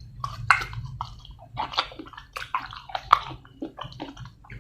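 A person chewing and slurping a wet, spicy seafood papaya salad of fresh shrimp close to the microphone: a quick, irregular run of wet smacks and squelches.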